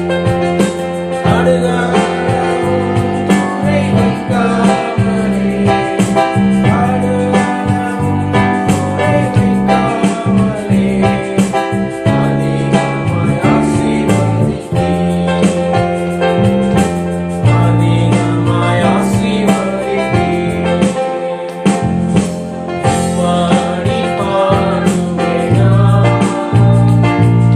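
Tamil Christian worship song: singing with electric keyboard accompaniment.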